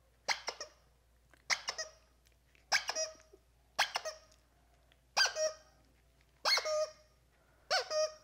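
A plush squeaky toy squeezed and released seven times, about once every second and a quarter, each squeeze giving a pair of short high squeaks.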